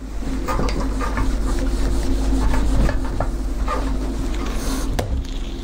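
Whiteboard eraser rubbing across a whiteboard in repeated wiping strokes, with a single sharp click about five seconds in.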